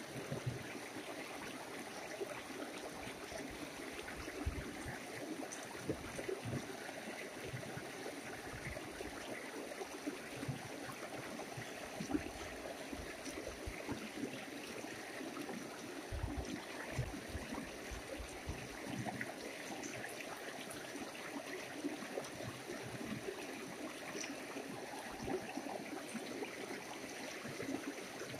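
Steady rush of a rocky mountain river flowing over stones, with scattered soft low thumps.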